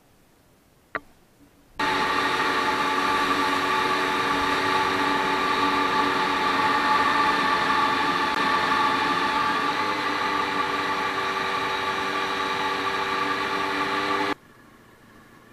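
Honda VFR400 NC30's V4 engine running at a steady speed under wind rush as the motorcycle rides along, with a small step up in pitch about halfway through. It starts suddenly about two seconds in and cuts off abruptly near the end.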